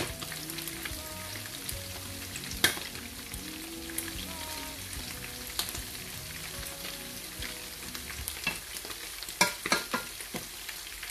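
Chicken pieces frying in oil in a skillet, a steady sizzle broken by a few sharp clicks and knocks, the loudest near the start and again about a second before the end.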